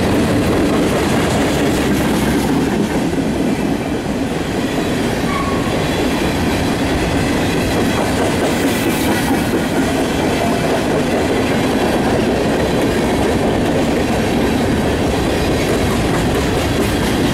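Freight train of covered hopper cars rolling steadily past: a continuous rumble of steel wheels on rail with a clickety-clack from the wheels.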